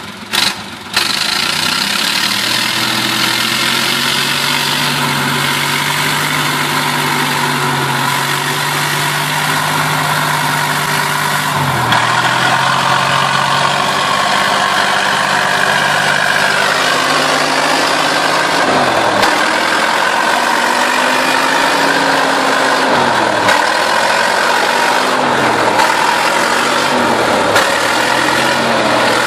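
Engine of a heavy six-wheel-drive log truck, loaded with logs, working hard as it climbs a muddy track. It runs loud and steady at first, then from about halfway the engine pitch swings up and down with repeated dips as the driver works the throttle.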